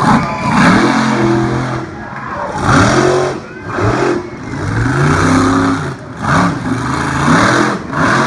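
Monster truck engine revving hard in repeated throttle bursts, its pitch climbing and dropping about half a dozen times.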